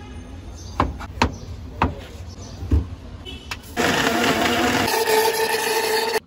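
A few sharp knocks, then an electric blender starts about two thirds of the way in and runs loud and steady, blending papaya juice, before cutting off suddenly.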